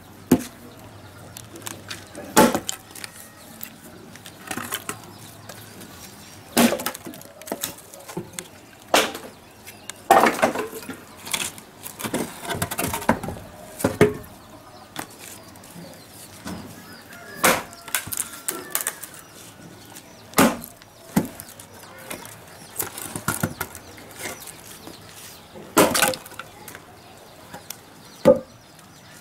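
Axe strokes chopping and splitting firewood on a log chopping block: sharp wooden knocks and cracks every second or two, some coming in quick runs.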